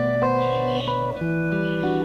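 Instrumental background music: a melody of held notes over a steady lower line, changing every half second or so.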